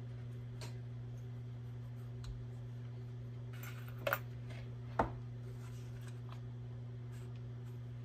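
Small metal pistol parts being handled and sorted, giving light scattered clicks with two sharper clicks about four and five seconds in, over a steady low electrical hum.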